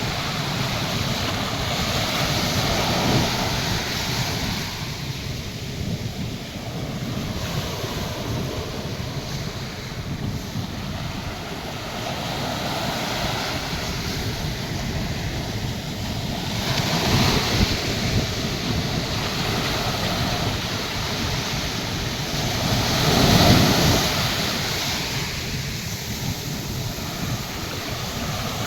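Atlantic Ocean surf breaking on the beach: a continuous wash of waves that swells as breakers come in, loudest about 17 and 23 seconds in, with wind buffeting the microphone.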